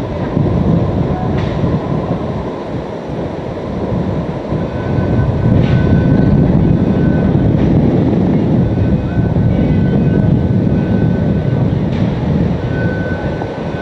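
Hurricane-force wind blowing hard across the microphone: a loud, deep rush that swells and ebbs, with a few faint knocks and a faint high whistle coming and going in the second half.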